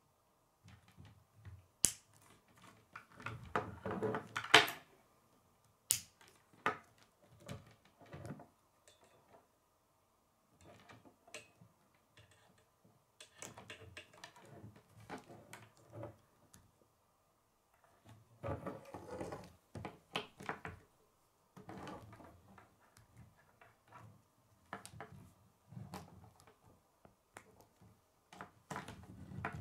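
K'nex plastic rods and connectors clicking and snapping together as they are fitted by hand, in irregular clusters of small clicks and rattles with a few sharper snaps.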